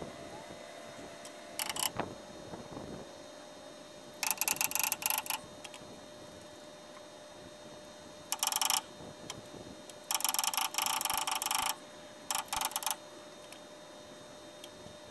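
Several short bursts of rapid mechanical clicking, the longest lasting close to two seconds, starting and stopping abruptly.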